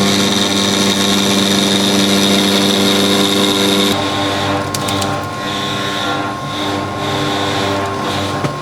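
CNC router spindle running steadily with a whine, machining a thick acrylic sheet; its tone shifts about four seconds in.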